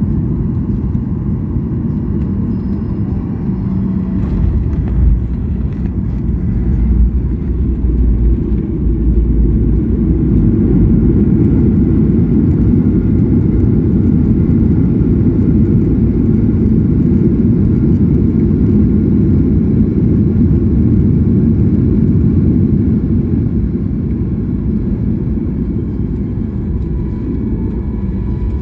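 Airliner during landing: a loud, steady low rumble, with heavier low bumps between about four and nine seconds in.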